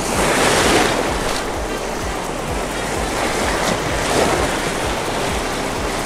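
Small surf waves breaking and washing around the microphone, surging about a second in and again about four seconds in. Background music with a steady low beat runs underneath.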